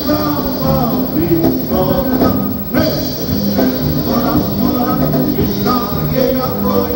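Live polka band playing a polka at a steady, loud level.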